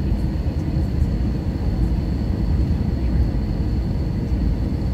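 Airliner cabin noise on the descent to landing: a steady low rumble of engines and rushing air, with a faint steady high whine above it.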